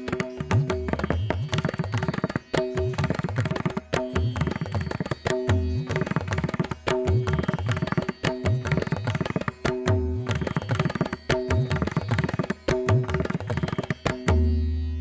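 Background instrumental music: rapid, even drum strokes over sustained notes.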